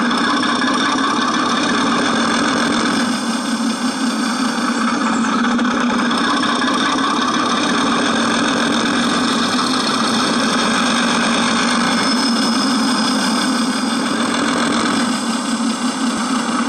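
Digital sound unit playing a simulated locomotive diesel engine through a loudspeaker, running loud and steady as the throttle is brought down through its notches toward tick-over, with slight shifts in the engine note a few seconds in and again near the end.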